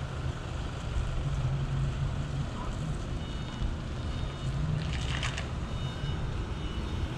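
Steady low outdoor rumble, with a short burst of rustling and clicks about five seconds in.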